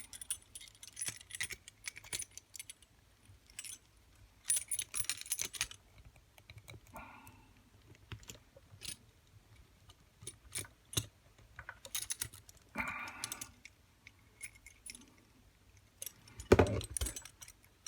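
Steel handcuffs and chain clicking and rattling in the hands as a hard metal tube unlocking tool is twisted tighter onto the cuff's threaded locking post, with irregular clusters of small metal clicks and a louder knock near the end.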